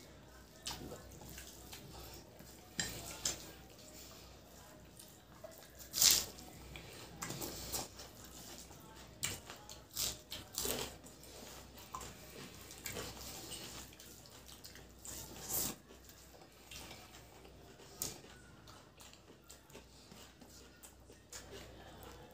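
Two people eating rice and egg curry with their hands from steel plates. Wet mixing and chewing sounds come with scattered sharp wet clicks and smacks, the loudest about six seconds in.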